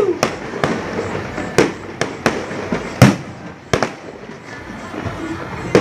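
Fireworks going off: irregular sharp bangs, some in quick pairs, the loudest about three seconds in, over a steady noisy background.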